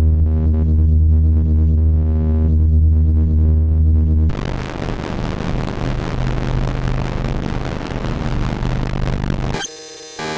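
Designed electrical buzz-and-hum sound effect loops. A deep, steady buzzing hum switches abruptly about four seconds in to hissing static over a lower hum. Near the end a different glitchy buzzing tone cuts in and briefly drops out.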